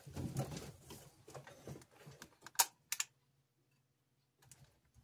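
Small parts, wires and tools being handled on a workbench: rustling and light clicking for the first couple of seconds, then two sharp clicks near the middle.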